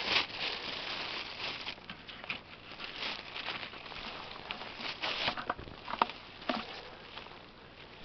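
Crinkling of a thin plastic bag being handled, then footsteps crunching through dry fallen leaves and twigs on the forest floor, an irregular crackle of small snaps and rustles.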